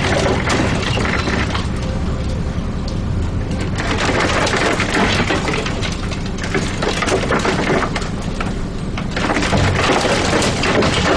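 Interior noise of a moving Dennis Trident 2 double-decker bus with Transbus ALX400 body: a steady engine and road drone under constant rattling and clattering from the body and windows.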